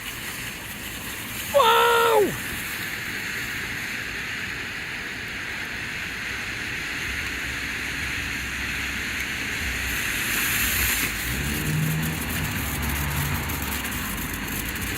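Ground fountain firework hissing steadily as it sprays sparks, growing a little louder and brighter about ten seconds in before easing off.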